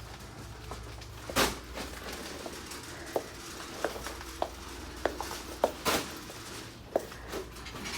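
Scattered light clicks and knocks over a low steady hum, with two louder knocks about one and a half and six seconds in.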